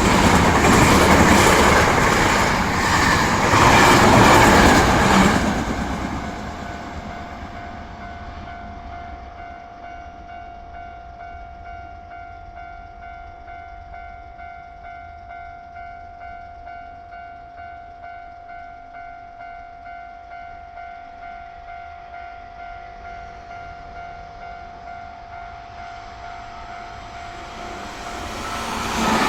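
A Hankyu electric train passes over the level crossing with rhythmic wheel clacks over the rail joints for about the first six seconds. After that the crossing's warning bell keeps ringing steadily, about two dings a second, showing that a second train is due. Near the end the next train arrives and the rumble rises again.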